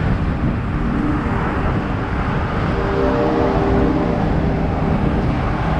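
Tour bus running, a steady rumble of engine and road noise. Faint steady tones come in briefly around the middle.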